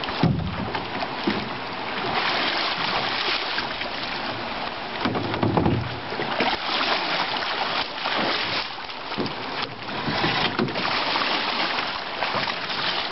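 River water splashing and sloshing around a person wading through the shallows while pushing and pulling canoes, uneven in loudness, with two low rumbles near the start and about halfway through.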